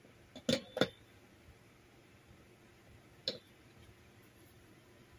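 Sharp clicks and knocks of hard parts being handled, three in quick succession in the first second and a single one about three seconds in.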